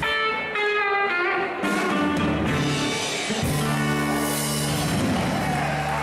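Live band playing an instrumental blues-rock passage, electric guitars and bass to the fore, with high bending lead notes in the first second or so and no singing.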